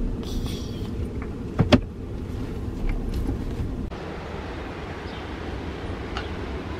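Steady low rumble inside a car, with two quick sharp knocks about a second and a half in. About four seconds in it gives way to an even hiss of wind and ocean surf.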